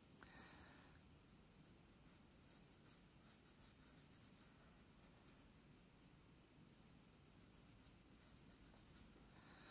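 Faint scratching of a coloured pencil stroking across drawing paper, in short runs of light strokes.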